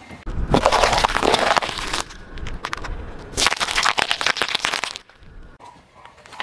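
Car tyre rolling slowly over small objects on rough asphalt and crushing them: dense crackling and crunching in two spells, the second starting about three and a half seconds in.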